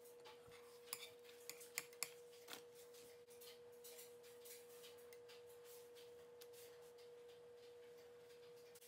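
Faint crackling of a crêpe cooking in a hot non-stick crêpe pan, with a few sharp clicks in the first three seconds as the crêpe is turned. A steady faint tone sounds throughout.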